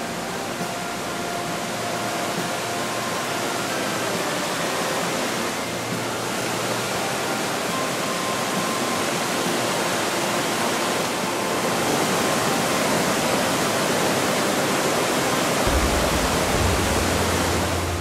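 Mountain stream rapids: a steady rush of white water tumbling over rocks, growing a little louder in the second half, with a deeper low rumble joining near the end.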